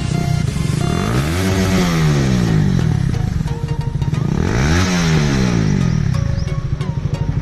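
Motorcycle engine idling fast and revved twice, its pitch rising and falling back each time, about a second in and again around the middle.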